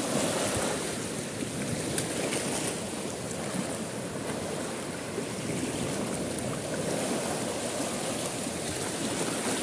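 Small waves of the high tide washing and lapping through mangrove roots, fallen branches and trunks along the shore, a steady rushing of water.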